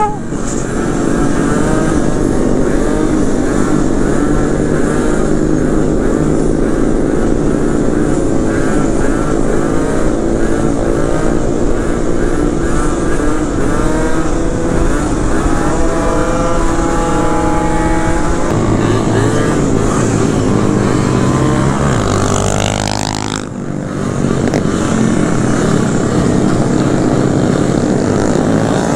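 Small Yamaha scooter engine running steadily at cruising speed, heard from the rider's helmet with wind rush over the microphone. A sharp rising whine about three-quarters of the way through, followed by a brief drop in level.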